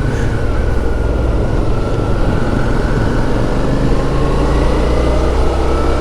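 Motorcycle engine, the Suzuki V-Strom 650's V-twin, running at a steady riding speed, with wind rushing over the microphone. A faint thin whine sags slightly in pitch and then rises again.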